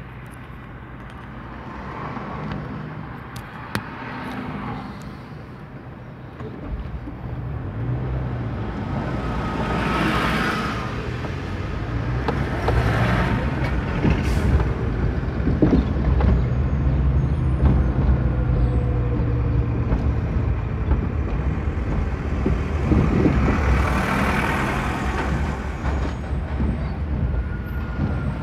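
Traffic noise from a car driving on a city street behind a diesel city bus. A low engine rumble grows louder about a quarter of the way in, and several short hisses stand out midway and again near the end.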